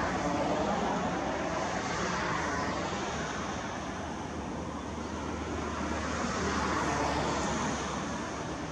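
Road traffic: a steady roar of vehicles passing on a multi-lane road, swelling as one passes near the start and again near the end.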